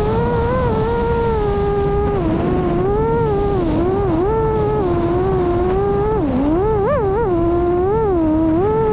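Electric motor and propeller of a Tomahawk FPV wing whining as it flies, heard from its onboard camera. The pitch keeps dipping and rising with the throttle, with a deep dip and a few quick blips about six to seven seconds in, over a steady rush of wind.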